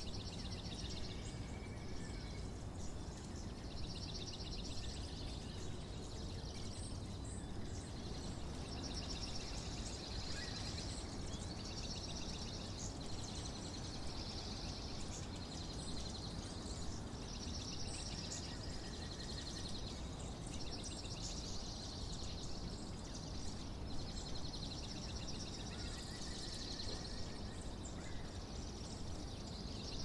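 Small songbirds singing high, fast trills, each about a second long and repeated every couple of seconds, with a few shorter lower notes between, over a steady low background noise.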